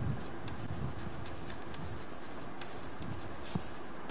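Chalk writing on a chalkboard: a run of faint scratching strokes, with a sharper tap about three and a half seconds in.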